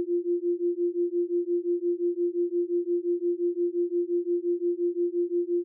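A single steady pure tone, pulsing evenly about five times a second: a generated brainwave-entrainment tone of the binaural-beat or isochronic kind.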